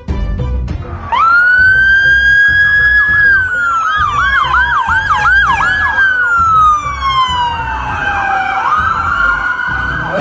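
Emergency-vehicle siren used as a sound effect, entering about a second in. It rises quickly, holds, then wails slowly downward, with a fast up-and-down yelp overlapping in the middle. It rises again near the end.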